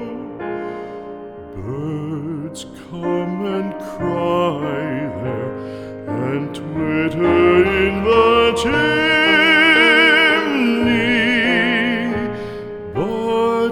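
Background music: a slow, tender melody with strong vibrato, carrying on between the verses of a sung ballad.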